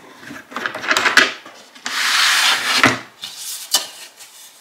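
Three long strokes of a hand tool rubbing along the edge of a spruce guitar top, truing a high spot so that the two halves will join without a gap.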